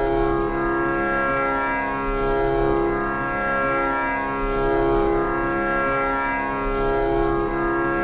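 Instrumental background music built on a steady, sustained drone that swells gently every couple of seconds, with no singing.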